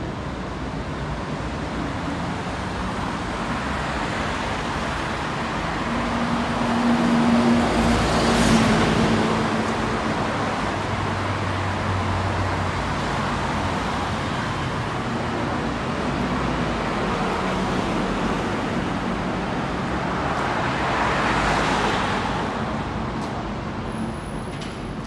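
Road traffic on a busy multi-lane city street: a steady wash of cars and buses. Two vehicles pass close and louder, the first about a third of the way in with a low engine hum, the second near the end.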